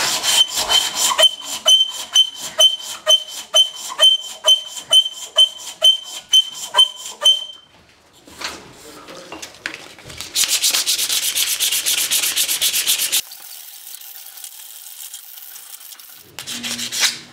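A strip of abrasive sanding cloth pulled back and forth around a wooden hammer handle held in a vise. For about seven seconds it goes in regular strokes of about two a second, each with a short squeak. After a pause comes about three seconds of steady high hiss, and a short scrape near the end.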